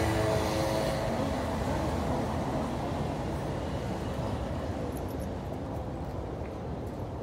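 Road traffic noise: a steady rumble of passing vehicles, with one engine's hum fading in the first second or two.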